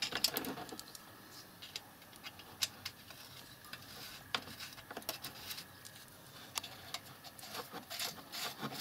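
Small metal nuts being run down by hand onto the cylinder-head studs of a 161QMK scooter engine: faint, scattered metallic clicks and light scraping.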